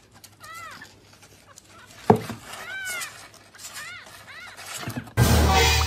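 A small kitten mewing four times in high, thin calls that rise and fall. There is a sharp knock about two seconds in, and a loud rushing noise near the end.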